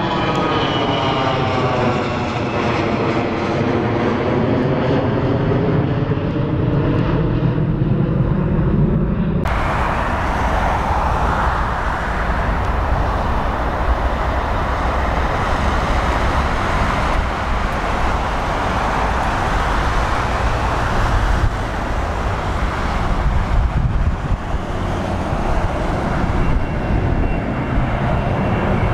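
Twin-engine jet airliner engines climbing away overhead, with sweeping, phasing tones in the noise. After a sudden cut about nine seconds in comes a second twin-engine jet's steady rumbling engine noise as it climbs out and passes overhead near the end.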